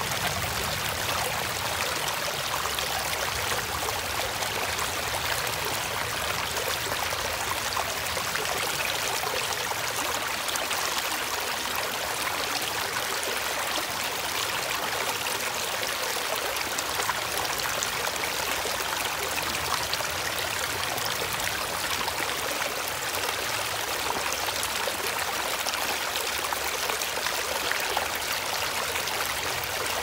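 Shallow rocky stream running fast over stones and small drops: a steady, even rush of splashing water, bright and hissy with little low rumble.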